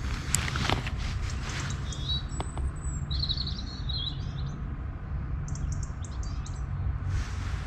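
A small songbird singing: a few warbling, chirping phrases, then a quick run of short high notes. In the first second there are sharp rustles and clicks, over a steady low rumble.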